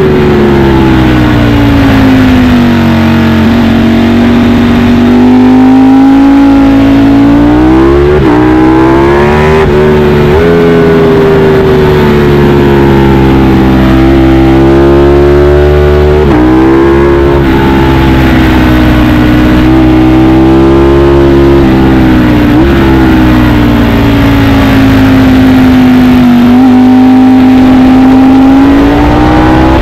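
Ducati Panigale V4 S sportbike's V4 engine running hard through a series of corners. The pitch rises and falls slowly with the throttle and jumps suddenly several times at gear changes.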